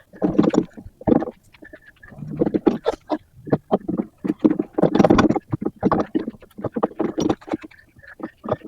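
A heavy homemade mobile workbench carrying a bench grinder and vise, pushed by hand on its wheels: an uneven run of metal clattering and rattling knocks, loudest in clusters about a third of the way through and again past the middle.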